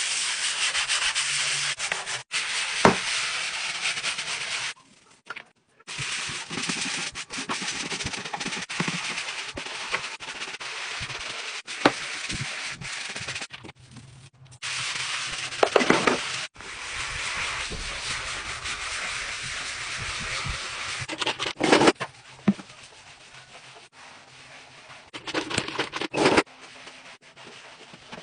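Stiff-bristled scrub brush scrubbing a tiled floor: runs of rasping strokes broken by short pauses, with a few sharp clacks.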